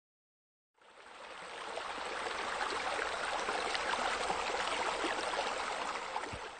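Running, splashing water, starting out of silence about a second in and swelling over the next second or so, then steady.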